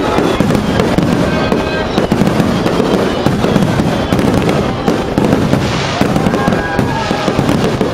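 Aerial fireworks going off in dense, rapid succession: a continuous barrage of bangs and crackles.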